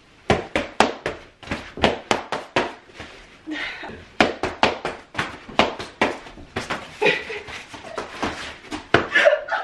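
Boxing gloves striking padded focus mitts: a quick, uneven series of smacks, a few a second, in a small room.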